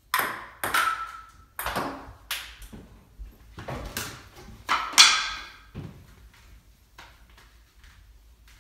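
Table tennis ball clicking sharply off paddles and the table, several hits about half a second apart, some with a short ring. About five seconds in comes the loudest impact, as a player drops to the floor, and after that only faint ticks.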